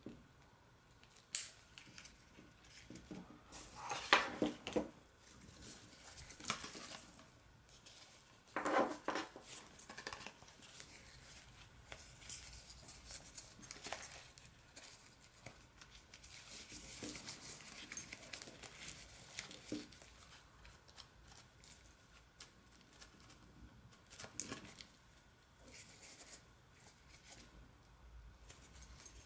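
Hands handling a braided clothesline and its nylon mesh stuff sack: quiet, intermittent rustling of mesh and fabric with small plastic clicks from the hook, in irregular bursts.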